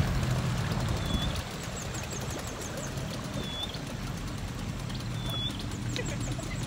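A boat's engine and river water give a low steady rumble, louder for the first second and a half. Over it a bird gives a short high whistled note about every two seconds, with faint chirps.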